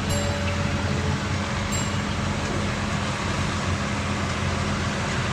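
Peterbilt 348 truck's diesel engine running steadily, a low hum under a haze of road noise.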